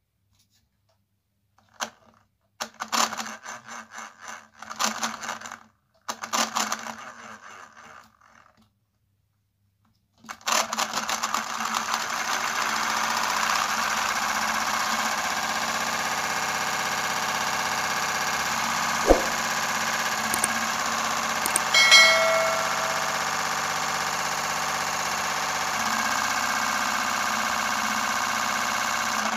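Small brushed DC motor spinning a homemade truck chassis's drive shaft, plastic differential and wheels: two short runs that wind down, then a steady whir from about ten seconds in. A sharp tick and a brief squeak come about two-thirds of the way through.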